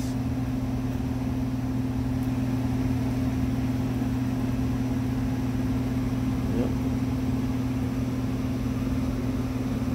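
A steady low machine hum, an even drone that does not change.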